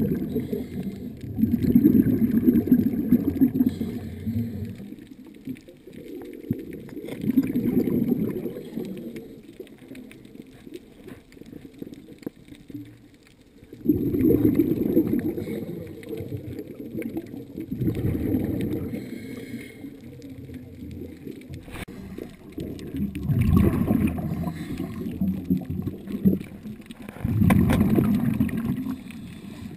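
Muffled bubbling of a scuba diver's exhaled breath, heard underwater through a camera housing, coming in swells every four or five seconds.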